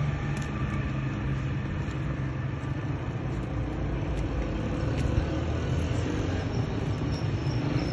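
A motor vehicle engine running close by, a steady low rumble over outdoor street noise, its low hum strongest in the first couple of seconds.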